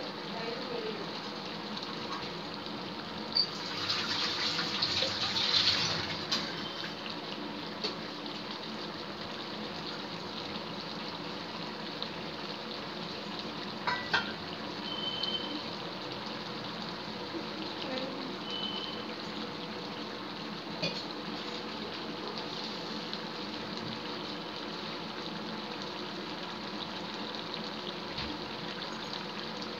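Prawn gravy simmering in a kadai on a gas burner, with a steady bubbling and hiss and a louder, crackly spell about four to six seconds in.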